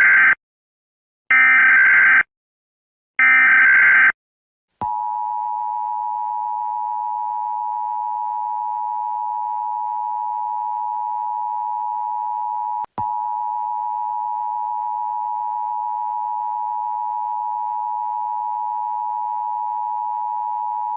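Emergency Alert System tones: three bursts of SAME header data, a harsh digital warble about a second each and a second apart, then the steady two-tone EAS attention signal (853 and 960 Hz) held for about sixteen seconds, with a brief break about thirteen seconds in.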